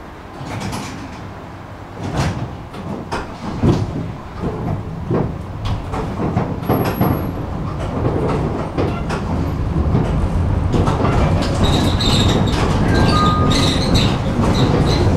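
Tram running on its rails, heard on board: a series of clunks and knocks over the track in the first half, then running noise that grows steadily louder, with brief high squeals near the end.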